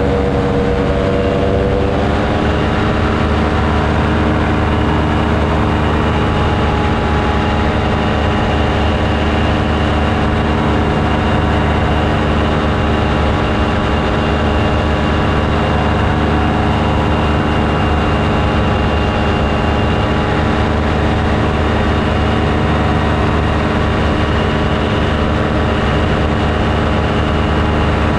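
Paramotor engine running steadily at cruise power close to the camera. Its pitch shifts slightly about two seconds in, then holds steady.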